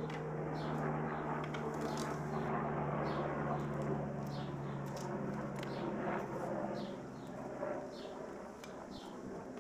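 Small birds chirping repeatedly in short, high, downward-sliding notes over a steady low hum that fades out about seven seconds in.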